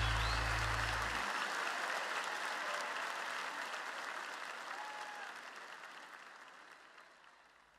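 Large concert audience applauding and cheering, fading away steadily. A deep steady tone under the applause cuts off about a second in.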